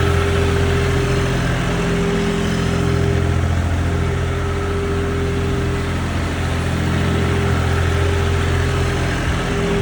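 Mini excavator's diesel engine running steadily at a constant speed.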